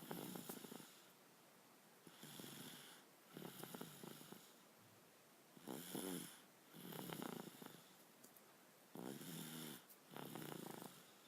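Snoring in sleep: slow, even breaths, each a pair of rasping snores, about three and a half seconds apart, four breaths in all.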